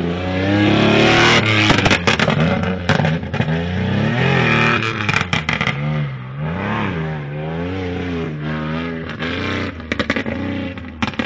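Supercharged 3.7-litre V6 of a Nissan Navara off-road race truck revving hard, its pitch repeatedly climbing and dropping as the driver accelerates and lifts off. Sharp crackles cut in at times, most clearly about two seconds in and near the end.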